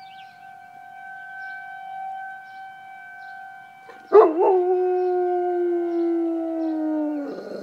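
A distant outdoor warning siren holds a steady tone, the monthly test. About four seconds in, a Bernese mountain dog starts one long, loud howl along with it, sliding slowly down in pitch for about three seconds before it breaks up near the end.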